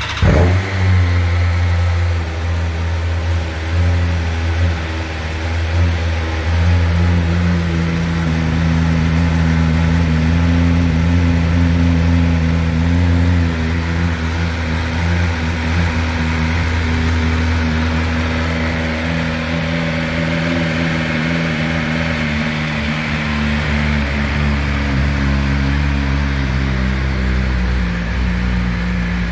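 BMW M1000RR's 999cc inline-four, breathing through an Akrapovic exhaust, starting right at the beginning, flaring briefly and then settling into a steady idle.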